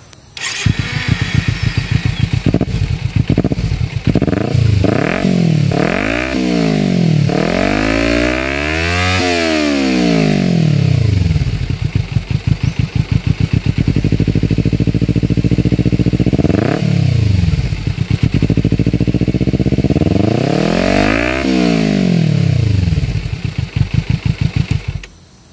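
Kawasaki Z250's parallel-twin engine through an aftermarket stainless-steel and carbon-fibre slip-on exhaust: it starts up and idles softly. It is blipped several times, then revved twice in long rises and falls with a short blip between, and is shut off near the end.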